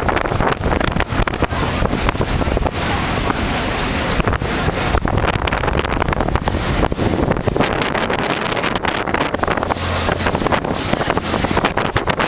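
Wind buffeting the microphone on the open deck of a moving tender boat, over the steady drone of its engine and the rush of water past the hull.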